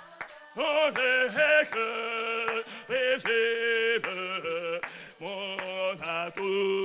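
A man singing a hymn in French, holding each note with a slight vibrato and moving from note to note in short phrases.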